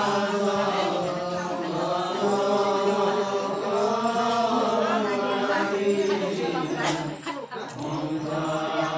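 Assamese naam, devotional chanting by a group of men, sung on long held notes. It breaks off briefly about seven seconds in, then carries on.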